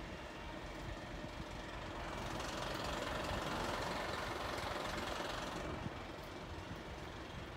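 Fire engine's diesel engine running steadily, a constant low rumble that grows louder and brighter for about three seconds in the middle before dropping back.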